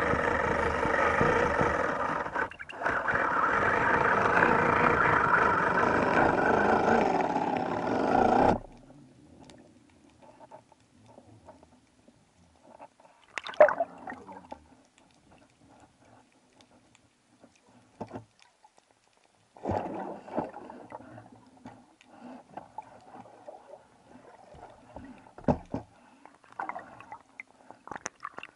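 Loud background music that cuts off abruptly about eight and a half seconds in. It is followed by quiet underwater sound from a camera on a speargun: water rushing and gurgling, with a few sharp knocks and clunks as the diver swims up toward the surface.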